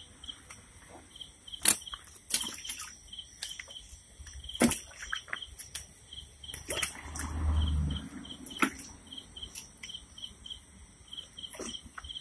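Water splashing and sloshing in short sharp bursts as a hand sorts wriggling live snakehead fish in a plastic tub, with a cricket chirping steadily, about three chirps a second. A brief low rumble comes about two-thirds of the way through.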